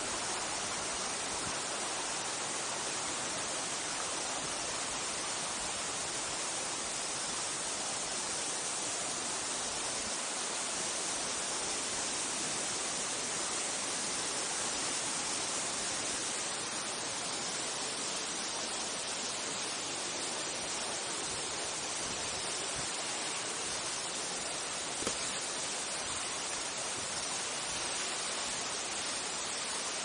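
Steady rush of a small waterfall and a mountain stream splashing over rocks, with one brief click a few seconds before the end.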